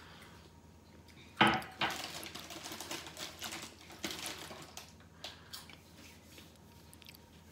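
A sharp knock, like a glass set down on a hard counter, about a second and a half in, followed by about three seconds of crinkly rustling from a Monster Munch crisp packet being handled, then a few light clicks.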